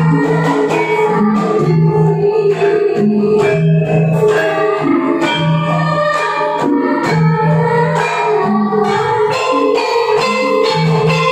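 Javanese gamelan ensemble playing in kendang gedruk (Sragenan) style: a repeating pattern of low kendang hand-drum strokes over ringing bronze metallophones and kettle gongs.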